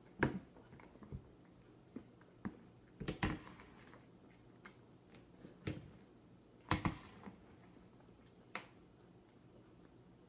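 Giant novelty metal fork and a large spoon knocking and scraping against a plate as food is scooped up, in irregular sharp clinks, the loudest about three and seven seconds in.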